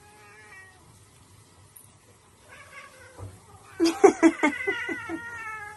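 House cat yowling. A faint short meow comes at the start. About four seconds in, a loud, drawn-out yowl wavers and slowly falls in pitch: a protest call from a squabble between two cats, one pawing at the other.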